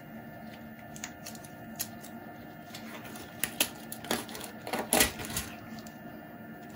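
Steady hum of a running Elegoo Mars 2 Pro resin printer, with a string of irregular light clicks and taps from about a second in, densest and loudest around five seconds in.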